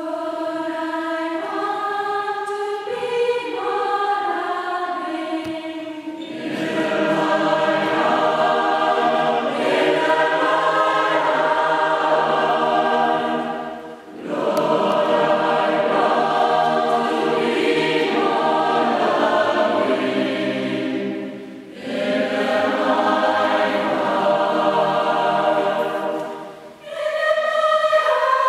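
Mixed choir singing. Only the higher voices are heard at first, and the lower voices join about six seconds in; there are short breaks between phrases.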